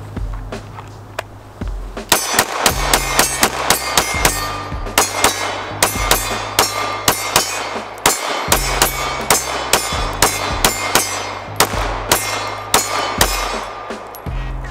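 Rapid fire from a 9mm Glock 19 pistol, two or three shots a second starting about two seconds in, with hits on steel targets ringing out, over background music with a steady bass line.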